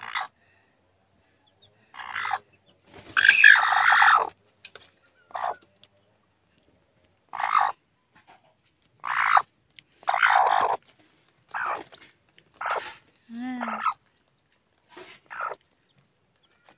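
Mother hen with chicks under her giving about a dozen short, harsh clucking growls, the loudest about three seconds in and a low rattling growl near the end: a brooding hen guarding her chicks.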